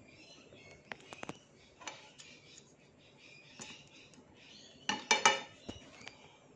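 Chopsticks and ceramic dishes clinking: a few scattered light clicks, then a louder cluster of clinks about five seconds in. Birds chirp faintly in the background.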